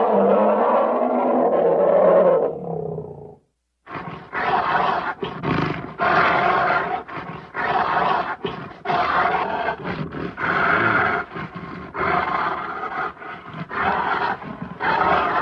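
Vintage sound-effect recording of a bear roaring: one long roar that fades out about three seconds in, then after a short gap a rapid run of short roars, about two a second.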